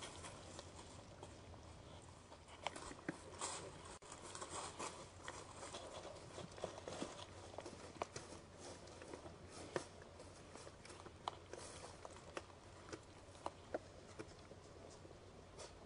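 Faint footsteps of a white-tailed deer in dry fallen leaves: soft rustling with scattered sharp crackles and clicks, over a steady low hum.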